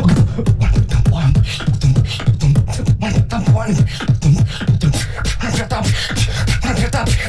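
Beatboxing: a fast, dense stream of vocal clicks and percussive hits over pulsing deep bass notes.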